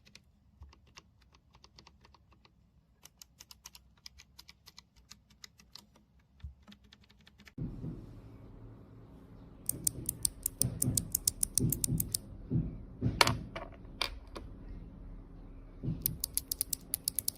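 Typing on a mechanical keyboard with clicky Kailh BOX Thick Click switches: rapid sharp clicks. The typing is faint at first; about halfway through it becomes louder over a low hum, in quick runs of crisp, bright clicks.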